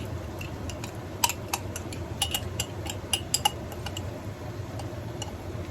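Kitchen utensil clinking and tapping against cookware while herbs are added and mixed into the pasta, in irregular light clinks, some ringing briefly, over a steady low hum.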